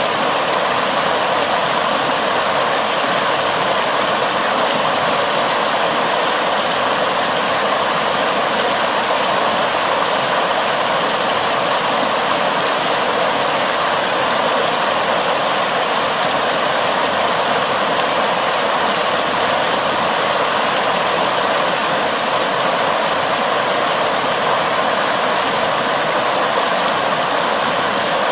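Floodwater rushing and churning in white-water waves over a submerged concrete path, a steady loud rush of fast water.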